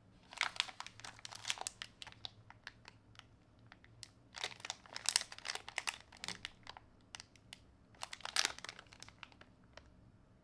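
Clear plastic wrapping on a sealed pack of card sleeves crinkling as the pack is handled and turned over in the hands. There are three spells of dense crackling, near the start, around the middle and toward the end, with scattered small crackles between them.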